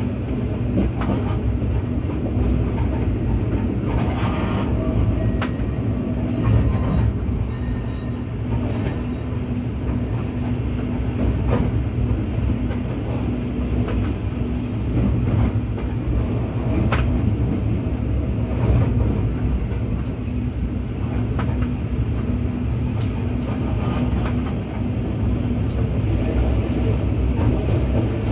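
Train running through a station over switches, heard from the cab: a steady low rumble and hum, with irregular sharp clicks and knocks of the wheels crossing points and rail joints.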